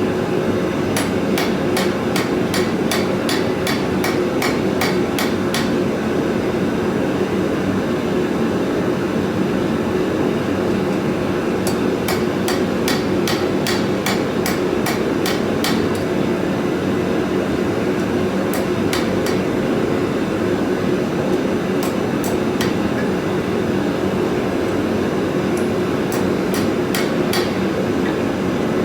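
A cross peen hammer forging hot steel on an anvil, in four runs of ringing blows at about two to three a second with pauses between. Under the blows runs the forge's steady, loud roar.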